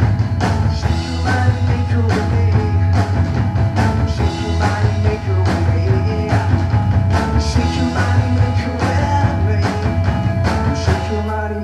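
Live rock band playing an instrumental passage on electric guitar and drum kit, loud and continuous, with a heavy low end and repeated cymbal and drum hits.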